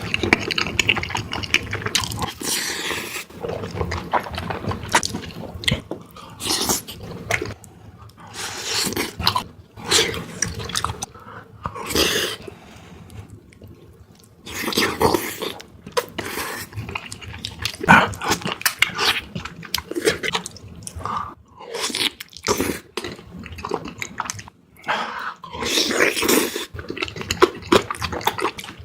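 Close-miked eating of spicy beef feet: irregular bites and chewing, in uneven bursts with short pauses between them.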